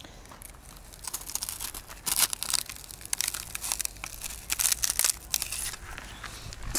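A shot-through iPhone 7 being pried apart with the tip of a spear shaft, its cracked glass and casing crunching and crackling in a run of sharp bursts, loudest about two seconds in and again around five seconds.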